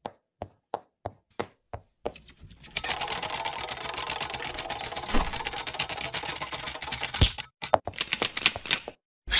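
Animated-intro sound effects: single sharp clicks about three a second, then a dense, fast clicking clatter like typing for about five seconds, a few more scattered clicks, and a bright electronic tone starting right at the end.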